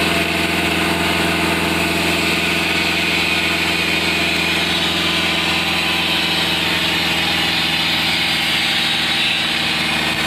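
An engine idling steadily at an even, unchanging pitch.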